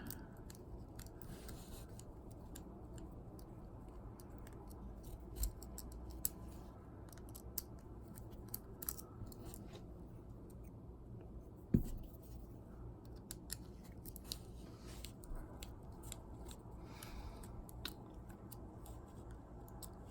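Faint, scattered clicks and ticks of small plastic toy parts being handled and fitted during disassembly of a Bakugan toy's core, with one sharper knock about halfway through.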